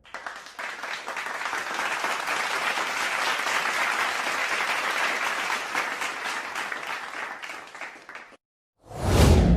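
Stock applause sound effect: a crowd clapping steadily for about eight seconds, cutting off suddenly. After a brief silence, a loud new sound starts near the end.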